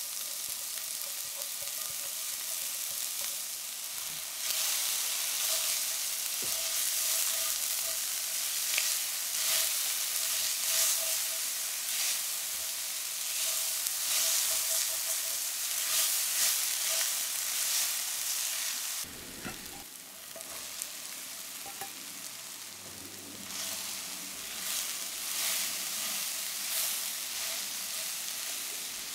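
Finely chopped shallot frying in olive oil in a cast-iron skillet, stirred with a silicone spatula: a steady hissing sizzle. It grows louder about four seconds in, drops suddenly about two-thirds through, and carries on more softly with shiitake mushrooms sautéing near the end.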